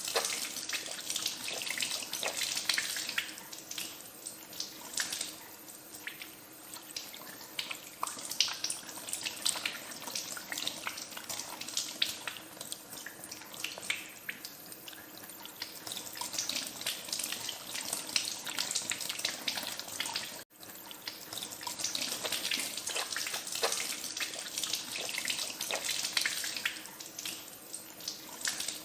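Tap water running into a sink while hands are washed under it: a steady splashing hiss with many small irregular splashes, broken by a sudden momentary gap about two-thirds of the way through.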